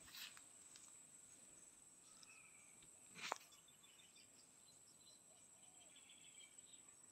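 Near silence with a faint steady high-pitched insect drone, a few faint bird chirps, and one short sharp click about three seconds in.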